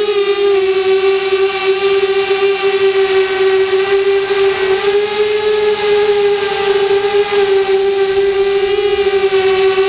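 Mini quadcopter's motors and propellers whining steadily while it hovers, one strong pitch with many overtones that wavers slightly up and down.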